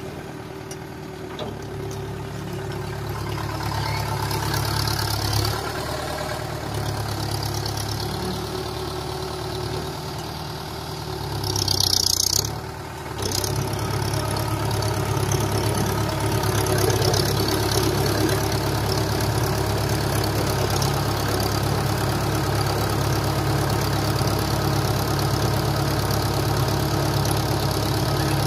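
Mahindra Yuvo 475 tractor's four-cylinder diesel engine running steadily, with a brief louder surge and hiss about twelve seconds in, then running a little louder.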